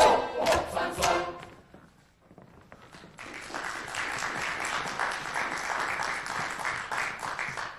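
Folk dance music with singing and accordion ends about a second in. After a short pause, the audience breaks into steady applause.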